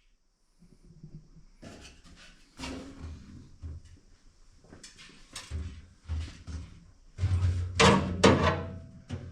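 Irregular knocks, clunks and rattles of a car's fuel tank and its mounting straps being handled and pushed up into place, the heaviest clunks near the end.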